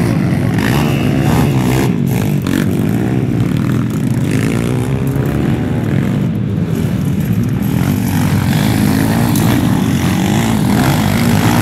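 Several pit bikes riding the track together, their small engines revving up and down, the pitch rising and falling as the riders open and close the throttle.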